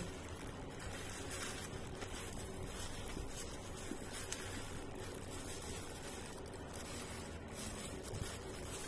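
Soft rustling of a clear plastic food glove and squishing of rice as a hand mixes food in a styrofoam box, a few faint crinkles now and then over a steady background hiss.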